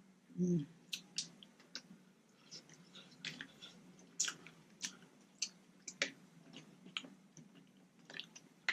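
Close-miked eating of seafood: chewing with wet mouth clicks and smacks scattered irregularly throughout, and a brief low sound about half a second in.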